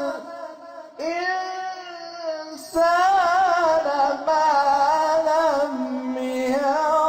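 A man's voice reciting the Quran in melodic tajweed style, holding long drawn-out notes with a wavering, ornamented pitch. A short break about a second in and another near three seconds separate the phrases.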